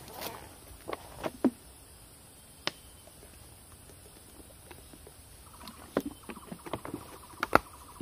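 Plastic water bottle handled and drunk from. Sharp crinkles and clicks of the bottle and cap come in the first second or so. A quiet stretch follows while he drinks, then a denser run of clicks and crackles as the bottle comes down, with the loudest click near the end.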